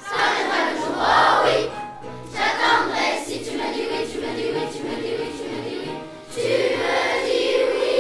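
Children's choir singing in French in unison, in short phrases. About six seconds in they go into one long held note on "oui".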